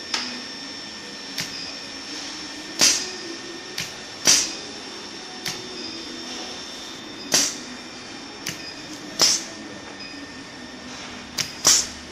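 Induction brazing machine running with a steady high-pitched whine, while metal parts are handled against it in about ten sharp, irregular clacks.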